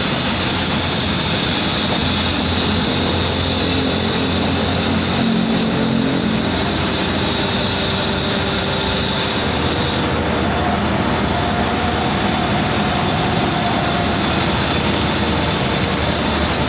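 Komatsu PC200 excavator's diesel engine running steadily under work, with a high steady whine that drops away about ten seconds in.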